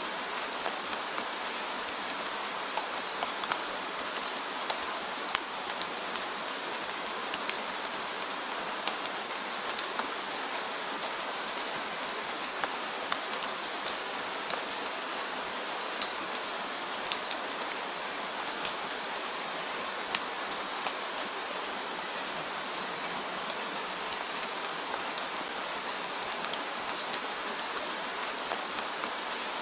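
Steady rain falling on a surface, an even hiss dotted with the sharp ticks of individual drops.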